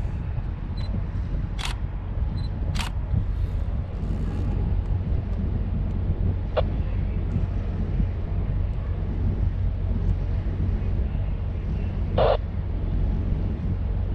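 Steady low rumble aboard a large bulk carrier at sea, with a few sharp clicks and a short blip about twelve seconds in.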